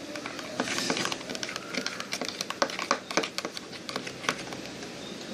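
Slime of clear glue, dish soap and salt being stirred in its container as it clumps: irregular sticky clicks and scraping sounds.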